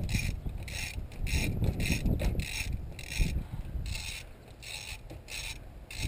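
Hand socket ratchet turning a bolt on an engine's timing components, its pawl clicking in short bursts about twice a second with each swing, over the knock and rub of hands and tools on the engine.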